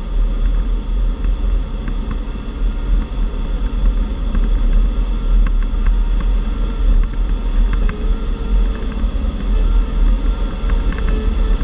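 Steady rumble of air rushing past the canopy of a Grob G103 Twin Astir glider in flight, heavy in the low end, with a few faint clicks from the cockpit.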